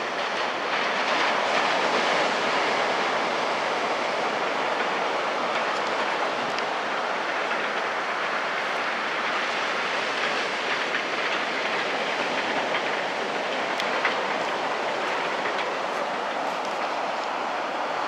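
Steady wash of surf from small waves breaking close to shore, an even rushing noise without a clear rhythm.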